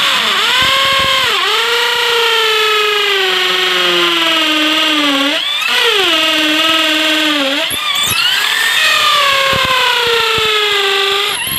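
INGCO ID6808 13 mm, 680-watt impact drill in hammer mode, boring a 10 mm masonry bit into concrete to widen an earlier 6 mm hole. The motor's whine sinks slowly in pitch as it is pressed into the concrete. It picks back up when the pressure eases: near the start, about halfway through and about two-thirds of the way in.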